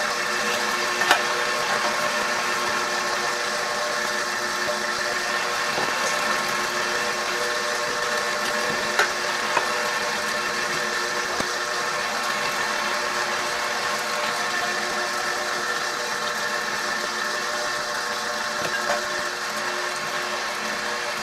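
KitchenAid Professional 6000 HD stand mixer running on a low setting and driving a meat grinder attachment as chicken breast is ground: a steady motor and gear whine. There are a few brief clicks about a second in and twice around nine seconds in.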